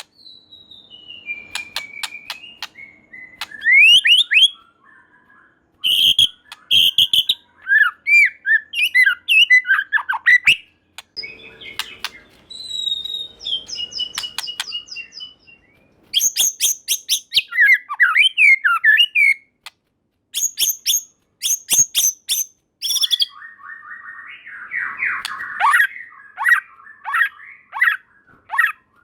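White-rumped shama singing a long, varied song: clear whistles gliding down and up, bursts of rapid sharp clicking notes, and a buzzy rattling phrase about two-thirds of the way through.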